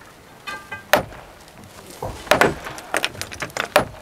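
Hand hammers striking and breaking stone: about half a dozen sharp, irregular knocks, several close together in the second half.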